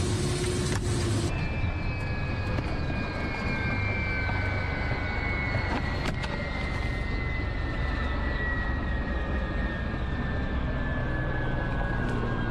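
Helicopter noise inside the cockpit in flight. About a second in, this gives way to a helicopter standing on the ground, its turbine whine falling slowly and steadily in pitch over a low rumble as the engines wind down. A single click sounds midway.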